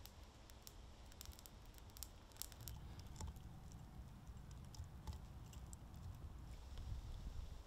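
Forest undergrowth burning and crackling faintly: scattered sharp ticks and pops, thickest in the first few seconds, over a low rumble.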